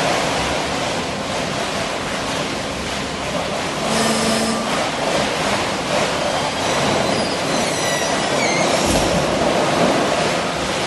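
Steady industrial machine noise from a guillotine roll-cutting line, its powered roller conveyor carrying off cut sections of plastic film rolls.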